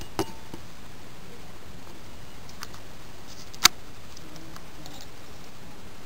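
Sonica direct-drive ceiling fan running with a steady airflow hiss, broken by a few sharp clicks, the loudest about three and a half seconds in.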